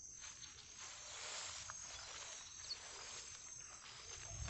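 Faint rural outdoor ambience: insects, such as crickets, trilling steadily and high-pitched, over a soft even hiss.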